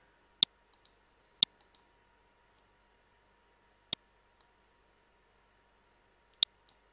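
Computer mouse button clicks: four sharp clicks, the first two a second apart and the others a few seconds later, with a few fainter ticks between.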